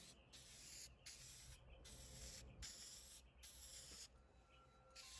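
Aerosol spray-can polyurethane being sprayed onto a wooden stool: a faint series of short hisses, about six in a row, stopping about four seconds in.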